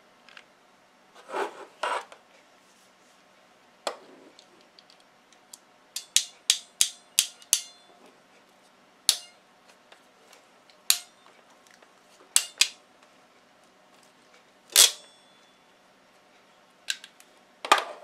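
Ratcheting coax crimping tool clicking as its handles are squeezed to crimp the ferrule of a BNC connector onto RG58 cable: a couple of duller knocks first, then a quick run of clicks, then single clicks, with the loudest click about fifteen seconds in.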